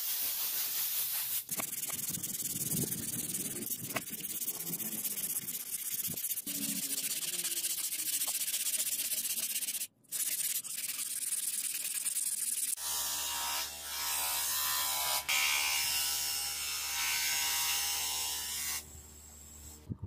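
Sandpaper rubbed back and forth by hand along a steel knife blade made from a bearing, a dense scratchy hiss. After a short break about ten seconds in, a steady machine hum joins from about thirteen seconds on and fades near the end.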